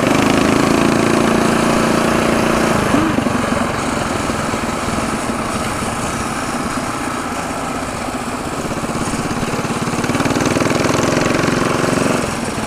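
Mini bike's small engine running under way, with a steady rush of wind on the microphone. The engine note is strong at first, falls back about three seconds in, and picks up again near the end.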